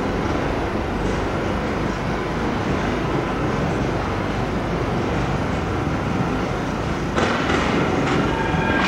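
Class 303 electric multiple unit running through the station's pointwork, its wheels rumbling and clattering over the rails. About seven seconds in, the sound turns louder and harsher.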